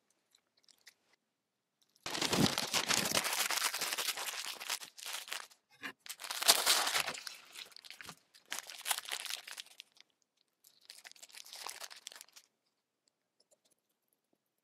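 Paper wrapping crinkling and rustling as a sandwich is folded up in it by hand, in four bursts starting about two seconds in.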